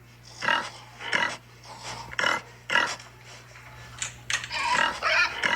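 Pig oinking: a series of short grunts, about six over the first four seconds, then a longer, busier run of grunts near the end.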